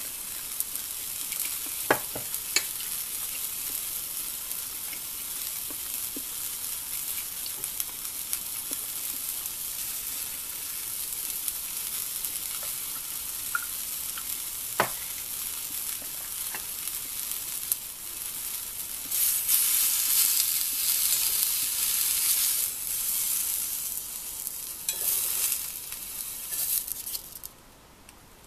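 Bean sprouts, cabbage and onion sizzling steadily in a cast-iron skillet on a tabletop gas burner, with a few light clicks. The sizzle gets louder for several seconds in the latter part, then drops away suddenly near the end as the skillet is emptied.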